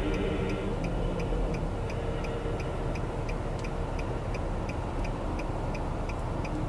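Steady, even ticking, about four ticks a second, over a low constant rumble.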